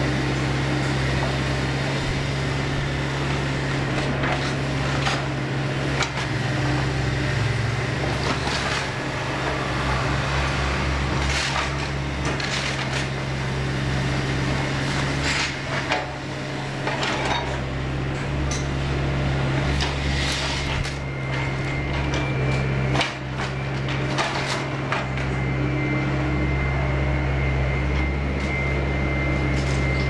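KATO hydraulic excavator's diesel engine running steadily while its arm pulls down a wooden building, with repeated irregular cracks, clatters and crashes of splintering timber and falling debris.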